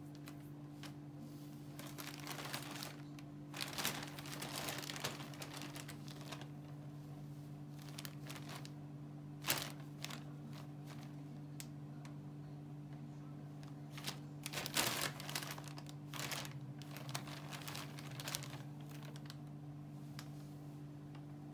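Thin plastic shopping bag rustling and crinkling in irregular bursts as a tabby kitten crawls and shifts about inside it, with a sharper crackle about nine seconds in. A steady low hum runs underneath.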